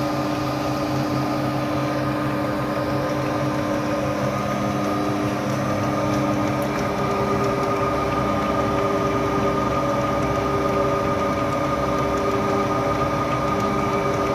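Double-sided wood planer's motors running steadily, with a constant hum of several fixed tones and no change in load.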